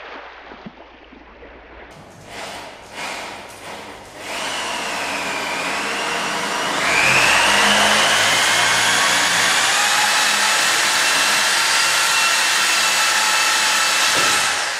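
A motor running with a whine over a rushing noise. It builds up about four seconds in, jumps louder to a higher whine about seven seconds in, then holds steady until it fades just before the end.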